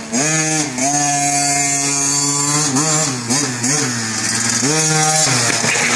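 KTM 50 Senior kids' dirt bike's small two-stroke engine revving as it is ridden. The pitch climbs and holds high for about two seconds starting a second in, wavers down and up, then climbs and falls again near the end.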